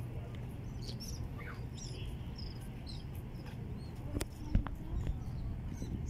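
Small birds chirping, many short high calls scattered through, over a steady low rumble. A couple of sharp knocks about four seconds in are the loudest sounds.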